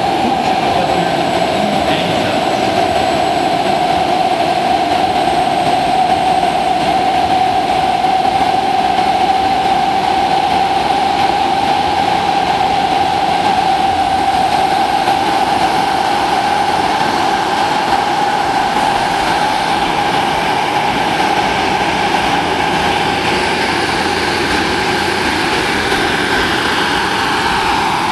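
Small gas turbine of a 1:5.7-scale radio-controlled EC-145 model helicopter running with a steady high whine while its four-blade rotor turns; the helicopter lifts off into a hover in the second half.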